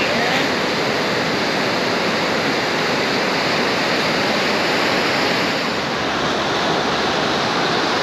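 Ocean surf breaking on a rocky shore: a steady rush of waves and foaming white water.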